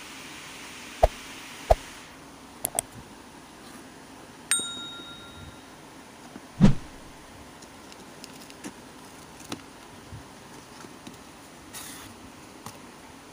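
Cardboard shipping box being handled and opened by hand: sharp knocks and taps, a loud dull thump about six and a half seconds in, and light rustling and clicks of cardboard and paper. A single bell-like ding rings out about four and a half seconds in, and a steady hiss stops about two seconds in.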